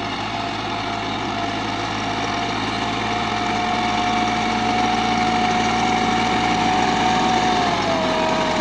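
Tractor engine running steadily while pulling a maize planter, growing slowly louder. A whining tone holds steady above the engine and drops a little in pitch near the end.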